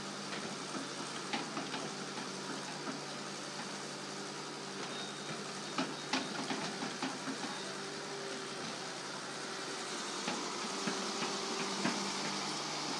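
Hydraulic excavator's diesel engine running steadily as its bucket levels and presses down a heaped load of soil in a dump truck bed, with a few light knocks.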